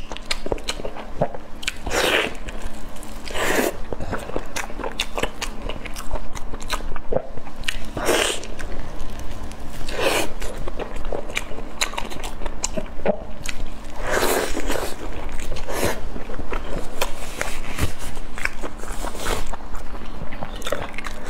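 Close-miked eating sounds of a soft, sauce-soaked food: wet biting, chewing and lip smacks, with a few longer, louder wet sounds spread through.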